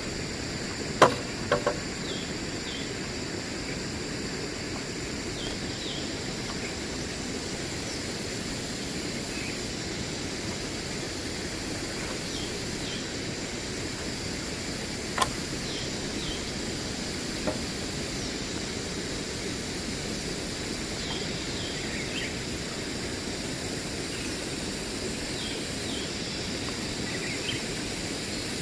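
Forest ambience: a steady background hiss with a continuous high insect drone and short, high bird chirps every few seconds. A few sharp knocks stand out, two close together about a second in and one around halfway.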